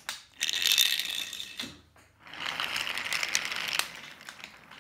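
Toy train and its cars rolling along wooden toy railway track, the wheels rattling and clicking over the track. The rattling comes in two stretches of about a second and a half each, with a short pause between.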